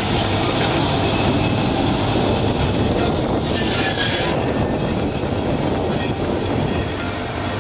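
Triumf PGD-400 slab resaw running as slabs are fed through it: a steady mechanical noise of the electric circular saw and its feed, with a brighter, higher hiss for about a second roughly three seconds in as the saw cuts.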